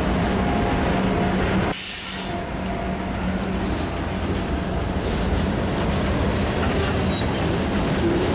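Freight train passing close by: a Norfolk Southern diesel locomotive moves off and loaded log flatcars roll past, their steel wheels rumbling steadily on the rails, with a brief dip in loudness about two seconds in.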